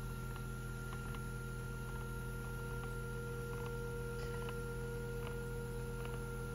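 Snailax shiatsu massage chair pad running its full-back program as the shiatsu nodes roll: a steady electric motor hum with faint, irregular ticks.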